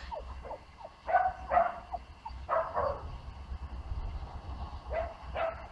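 A puppy yapping: a handful of short, high barks in three bunches, two quick ones about a second in, a longer one around the middle and two more near the end.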